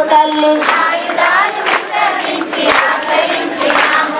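A group of women singing a devotional song: one lead voice through a microphone, then many voices singing together, with hand clapping along.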